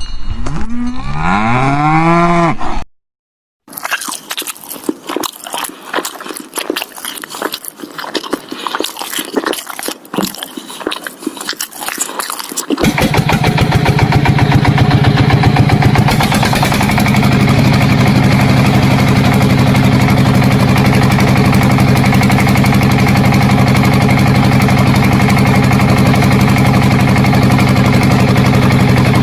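A cow mooing, with the pitch bending up and down, cut off after about three seconds. After a brief gap come irregular clicking and rattling, and then, about thirteen seconds in, a steady engine-like drone starts and runs on.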